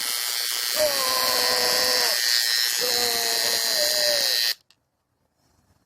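Electric hair clippers buzzing loudly and steadily as a mock electrocution sound effect, cutting off abruptly near the end. Over the buzz a man lets out two long, wavering cries.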